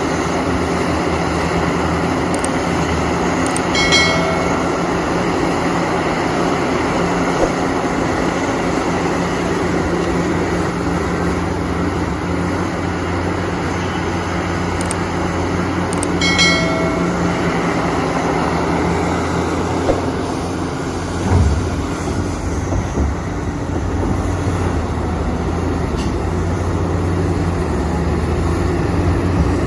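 Diesel engine of a JCB excavator running steadily under work. Two brief high tones sound about four and sixteen seconds in, and a few low thumps come about twenty-one seconds in.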